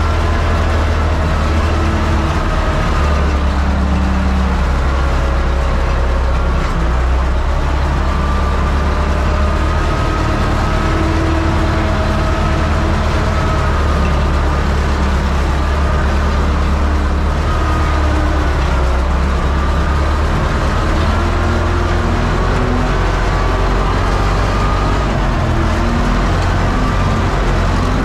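Universal 650 tractor's diesel engine running steadily under load while pulling a disc harrow, heard from inside the cab.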